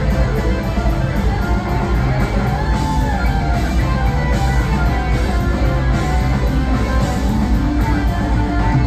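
Rock band playing live: electric guitars with organ, bass, and a drum kit plus percussion keeping a steady beat, heard from far back in a concert hall.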